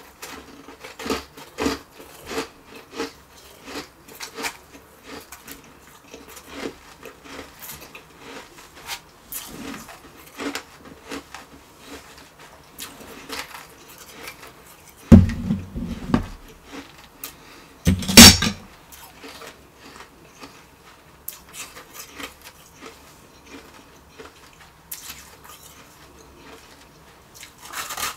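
Refrozen shaved ice crunching and crackling as it is broken by hand and chewed, a close run of small crisp crunches. Two much louder bumps with a deep thud come about fifteen and eighteen seconds in.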